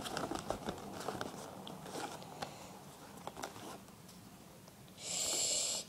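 Plastic and cardboard retail packaging of an iPod touch case being handled and pried open: scattered small clicks and crackles, then about five seconds in a brief steady rasp lasting under a second.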